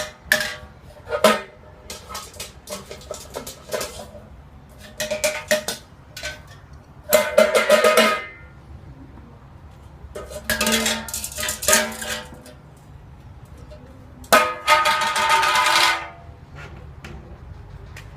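Bursts of metallic clattering and rattling with a ringing tone, as a pet knocks a metal object about. The loudest bursts come about seven, ten and a half and fourteen and a half seconds in, each lasting one to two seconds, with lighter clinks between them.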